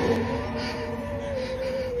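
Long-haired cat giving one long, drawn-out whining meow that dips in pitch as it ends.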